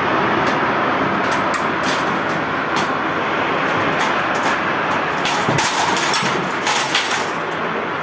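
Tornado winds blowing with a loud, steady rushing noise, with scattered sharp clicks and knocks that come thicker in the second half.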